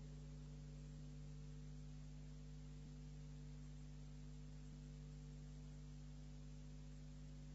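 Near silence: a steady low electrical hum with faint hiss in the recording, and a few faint clicks.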